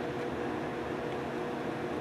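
Steady hum of a fan motor running, with a few low steady tones in it and no change in level.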